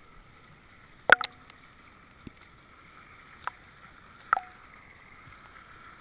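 Hand and toy moving in pool water beside a water-level camera: a few sharp clicks and small splashes over a steady hiss. The loudest is a double click about a second in, with two smaller ones a few seconds later.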